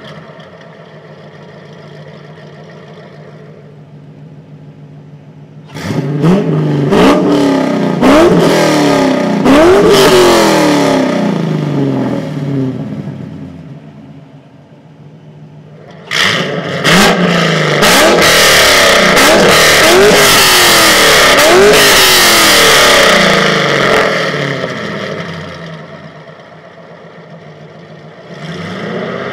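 C5 Corvette's LS V8 running through a hand-built valved exhaust with Valvetronic mufflers, idling between two bursts of revving. About six seconds in, a string of quick throttle blips rises and falls back to idle. About sixteen seconds in, sharp revs build to a high engine speed that is held for several seconds before dropping back to idle, and the revs start to climb again near the end.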